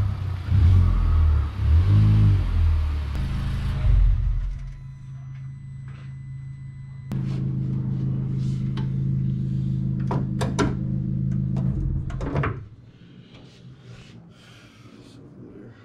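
Honda Civic Type R engine running with brief revs for the first few seconds, then quieter. About halfway in, a steady low hum starts abruptly and stops near the end, with a few sharp clicks.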